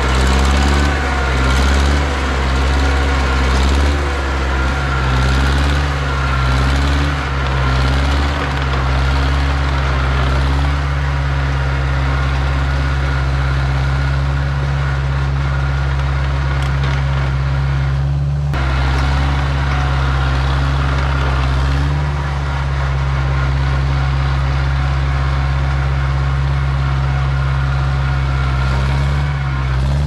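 John Deere 1010 crawler dozer's four-cylinder gasoline engine running under load while pushing dirt and rubble. Its pitch rises and falls for about the first ten seconds, then holds steady.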